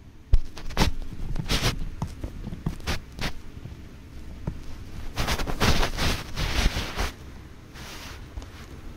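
A beagle gnawing a chew bone, its teeth scraping and clicking on it in irregular bursts, busiest about five to seven seconds in and quieter near the end.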